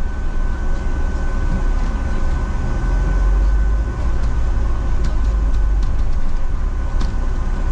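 Cabin noise of a moving double-decker bus heard from the upper deck: a steady low engine and road rumble that grows heavier for a few seconds in the middle. A constant thin whine and a few light rattles run over it.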